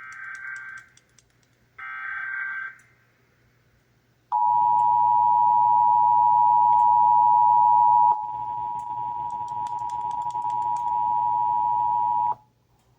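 Two short bursts of warbling Emergency Alert System header data, then the EAS attention signal: a loud, steady two-tone beep held for about eight seconds. It dips slightly in level a little past halfway and cuts off abruptly about a second before the end.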